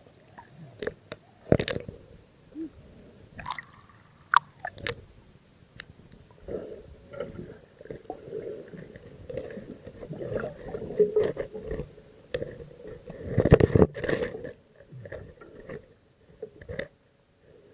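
Muffled underwater sound picked up through a submerged camera's housing: water moving, with several sharp knocks and clicks in the first five seconds and a louder rush about three-quarters of the way through.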